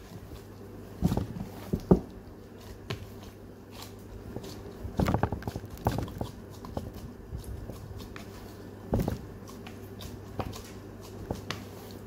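A plastic-gloved hand kneading and pressing soft bread dough in a plastic tub: irregular squishes and soft knocks of the tub, the busiest stretch about five seconds in, over a steady low hum.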